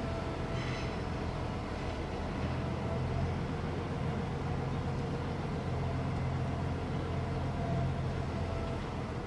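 HD300 hybrid shunting locomotive's diesel engine-generator running with a steady low hum as the locomotive moves slowly along the yard track.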